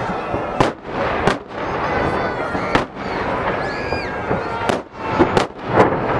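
Aerial firework shells bursting with sharp bangs, a few spaced a second or more apart, then three in quick succession near the end, over the steady noise of a large crowd.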